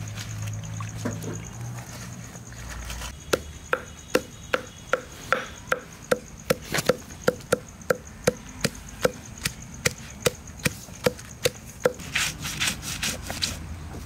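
A stone roller (nora) knocking on a flat stone grinding slab (shil pata) as it crushes fresh vasaka (Malabar nut) leaves, about two to three sharp knocks a second. Near the end it rolls and rubs the leaves across the stone to grind them down and press out their juice.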